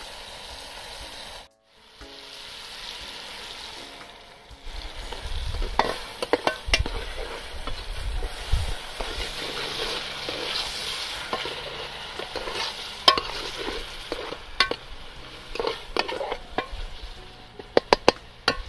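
Steel ladle stirring a masala that is sizzling and bubbling in an aluminium pot over a wood fire, knocking and scraping against the pot with sharp clinks. The sizzling and clinks start about four seconds in, and there is a cluster of quick clinks near the end.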